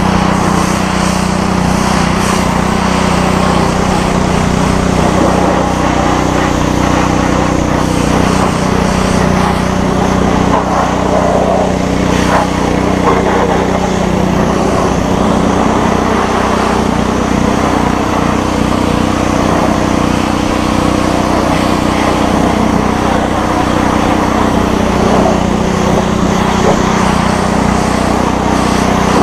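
Simpson MSH3125 gas pressure washer's engine running steadily under load, with the hiss of the 25-degree nozzle's jet striking a truck's body panels and wheel well. The pump is back at good pressure after air was bled from the line.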